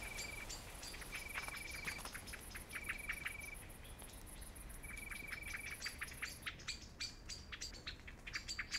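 Woodland ambience of birds and insects: a short, rapid trill repeated every second or two, scattered high chirps, and a thin high insect buzz that stops about two-thirds of the way through.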